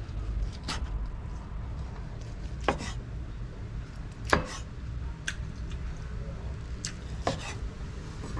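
Large kitchen knife slicing steamed stuffed squid into rings on a wooden chopping board: a sharp knock each time the blade meets the board, about nine strikes at uneven intervals, some in quick pairs, the loudest about halfway through.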